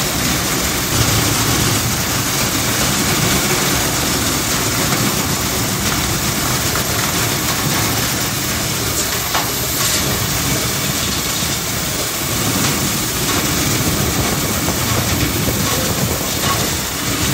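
Steady rush of compressed air from an air-whip agitator blasting dust loose inside a sheet-metal air duct.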